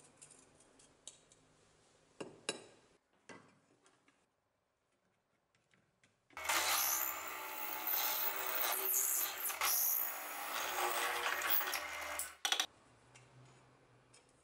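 Bench drill press running and drilling out a rivet hole in a meat cleaver's steel tang, starting about six seconds in and lasting about six seconds. Before it, light metal clinks as an aluminium rod is handled and tried against the tang.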